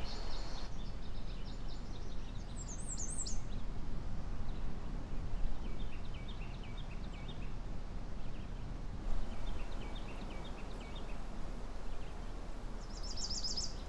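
Quiet outdoor ambience with small birds calling over a steady low background noise: a few quick high chirps about three seconds in, runs of short repeated notes in the middle, and a brief high trill near the end.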